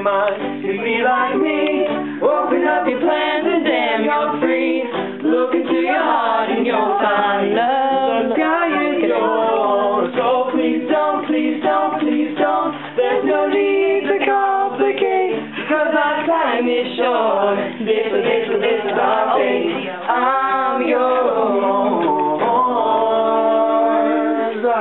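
Mixed voices singing together a cappella, several parts at once, closing on a long held chord near the end.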